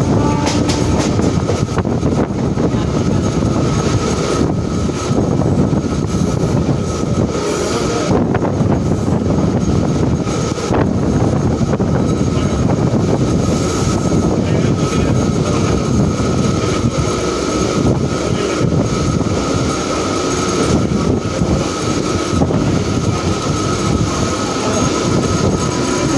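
Mumbai suburban local electric train running along the track, heard from inside the coach: a steady loud rumble of wheels on rail with a thin, constant high tone over it.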